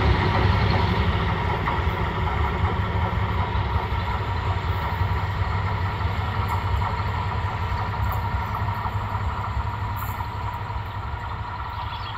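Diesel passenger train pulling away along the track, its engine and wheels giving a steady low rumble that slowly fades as it recedes.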